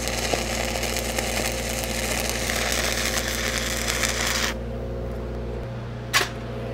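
Stick welding arc crackling steadily as a downhill cap pass is run on pipe, slowly and with the welding machine turned down; about four and a half seconds in the arc breaks off and the crackle stops. A steady low engine hum runs underneath throughout, with one sharp click near the end.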